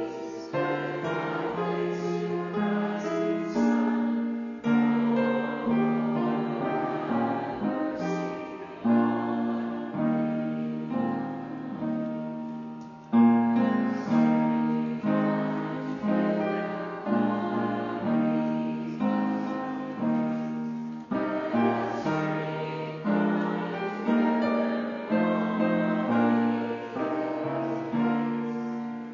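Piano music: slow chords, each struck and left to fade before the next.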